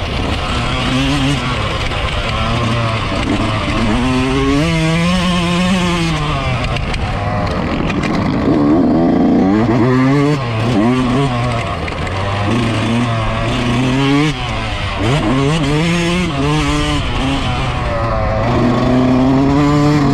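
Yamaha YZ125 two-stroke single-cylinder motocross engine, ridden hard: it revs up and falls back again and again, every two to three seconds, as the rider works the throttle and gears, over a steady hiss.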